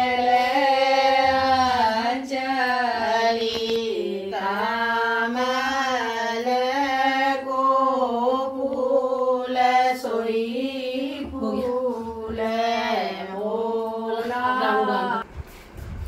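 Women's voices singing a Kumaoni mangal geet, a traditional ceremonial song, in long held, gently wavering chant-like notes. The singing cuts off abruptly near the end.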